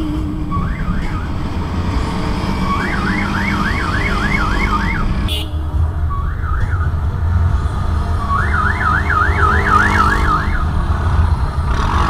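Ambulance siren in a fast yelp, its pitch sweeping up and down about three times a second. It comes in two runs of a couple of seconds each, each led by a short blip. A car's steady road and engine rumble runs underneath.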